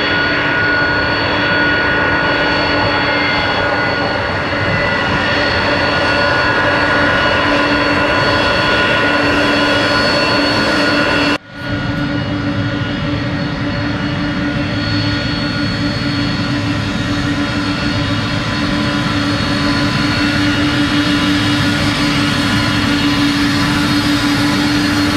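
Turbofan engines of KC-46 and KC-135 tanker aircraft running at taxi power: a loud, steady jet rush with a constant whine. The sound drops out for a moment about halfway through and then resumes.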